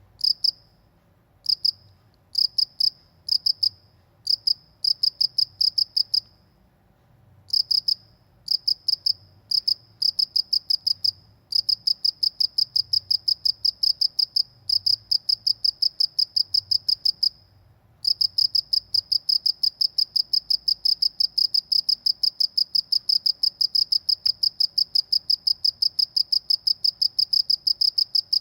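A cricket chirping loudly in a high, rapidly pulsed tone. It comes in short bursts with brief pauses at first, then runs on as an unbroken trill from about two-thirds of the way through.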